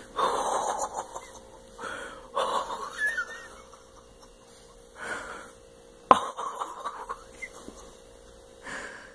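A person breathing hard in uneven bursts of gasps and exhales, shaken after a sudden fright. A sharp knock comes about six seconds in, over a faint steady hum.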